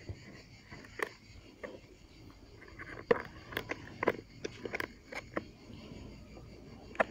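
Thin plastic bottle crinkling and clicking while cord is pulled through holes punched near its rim: irregular sharp crackles, busiest about three to five and a half seconds in.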